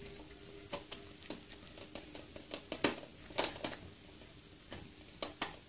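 Faint, irregular small clicks and taps from handling the rubber hose and plastic parts of a homemade air gun while its hose clamps are screwed tight.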